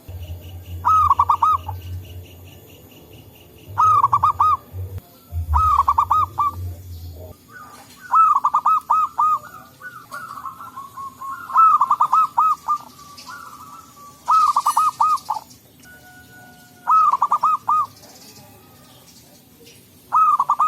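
Zebra doves (perkutut) cooing: short phrases of quick, clipped coos repeated about eight times, the birds answering one another.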